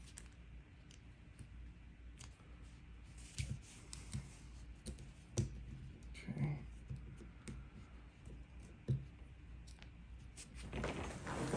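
Small scattered metallic clicks and taps of a lock and hand tools being handled on a desk, with a denser rustle of handling near the end.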